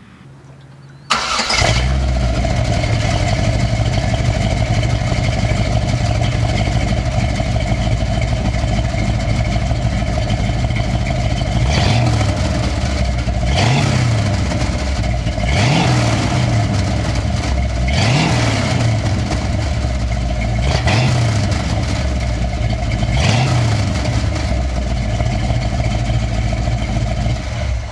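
Chevy Bel Air's 454 big-block V8 starting about a second in and running loud and steady. In the second half it is revved in about six short blips that rise and fall, then it stops at the end.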